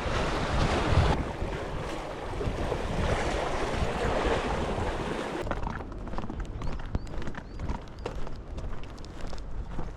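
Waves washing on the shore with wind buffeting the microphone. About halfway through this gives way to quieter, irregular crunching clicks.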